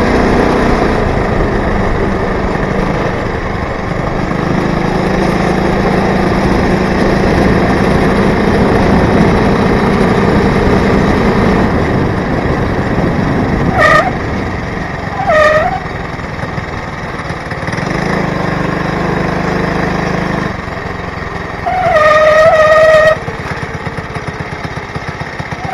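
Motorized bicycle's 80cc two-stroke engine running at speed, then easing off near the end and idling with rapid regular pops. Short brake squeals come twice in the middle and a longer squeal comes near the end as the bike slows; the rider finds the brakes bad.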